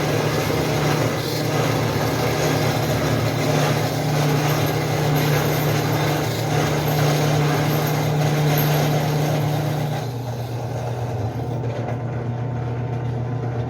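Benchtop drill press running with a 6 mm bit cutting into steel flat bar: a steady motor hum under a harsh grinding noise. About ten seconds in the cutting noise drops away as the hole goes through, and the motor keeps running with its hum slightly lower.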